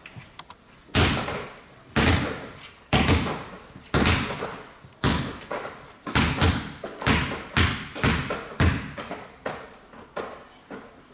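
Basketballs thudding as they are thrown and caught between partners. The first comes about a second in, then roughly one a second, coming faster and overlapping from about six seconds in, each one echoing in a large sports hall.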